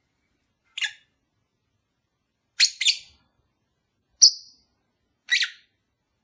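Lovebird giving short, sharp, shrill chirps, five in all, with silent gaps of a second or more between them and two calls close together in the middle.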